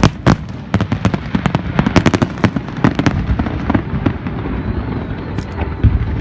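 A fireworks display with many sharp bangs and crackles in quick, irregular succession, over a continuous low rumble.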